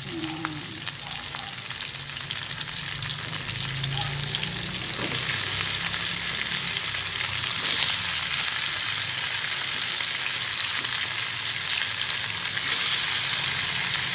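Raw chicken pieces sizzling in hot oil with garlic and onion in a wok as they are seared. The sizzle grows louder about five seconds in and then holds steady.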